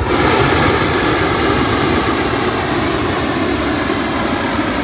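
Loud, steady engine-like roar that starts suddenly and holds at an even level.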